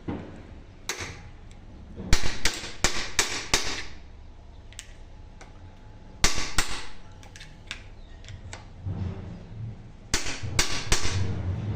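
Sharp metal-on-metal hammer blows on a power steering rack being tightened, in three bursts of quick strikes: about five, then two, then about four, with pauses between.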